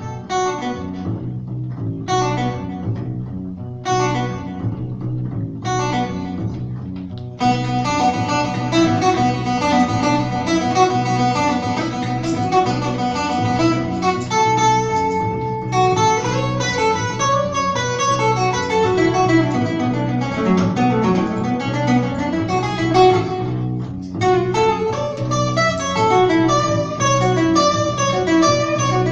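Acoustic guitar and upright bass playing a jazz instrumental passage over a repeating bass figure. The guitar plays short, broken phrases at first, then from about seven seconds in it plays dense, continuous notes.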